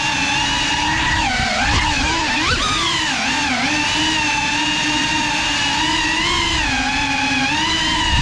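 Small FPV drone's brushless motors and propellers whining steadily, the pitch dipping and rising with throttle changes about one to four seconds in.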